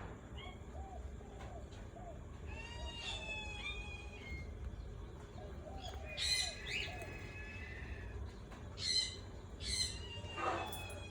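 Parrots calling: scattered harsh, screechy calls and a drawn-out whistled note. The loudest calls come about six seconds in and again near the end.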